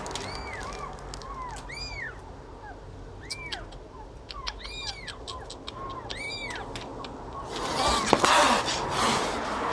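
Nursing kittens mewing: many short, high-pitched mews, each rising then falling, coming in quick runs. Near the end a louder burst of noise with a sharp knock cuts in.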